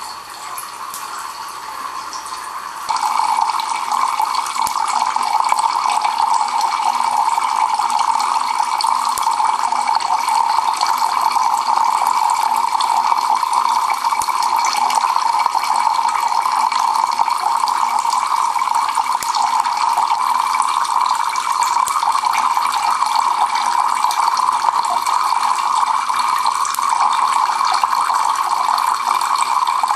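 Water pouring in steady streams from the two holes of a homemade Kelvin water dropper and splashing into its collecting cans, a continuous rushing sound that gets louder about three seconds in.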